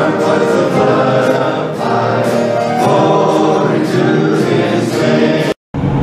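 A church congregation singing together, many voices holding long notes; the singing cuts off abruptly near the end.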